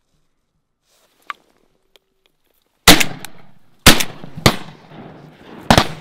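Duck hunters' shotguns firing a volley of four or five blasts in about three seconds, from more than one gun, after a quiet start.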